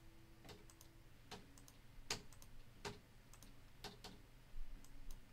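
Computer mouse button clicked repeatedly: faint, sharp single clicks roughly a second apart.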